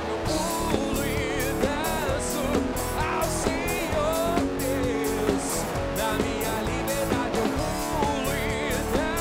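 Live band playing a rock-style worship song. The full band comes in right at the start: drums keep a steady beat under guitar chords, and a bending, wavering lead melody runs over the top.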